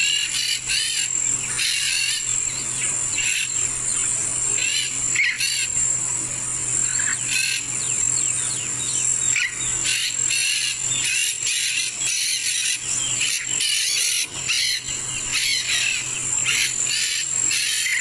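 Steady high-pitched insect drone of crickets or cicadas, with frequent short bird chirps and calls over it.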